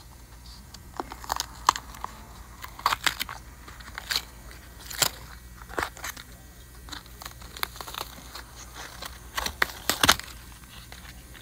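Pleated paper element of a cut-open cartridge oil filter crackling and crunching as hands pry its pleats apart and fan them open, in irregular sharp clicks.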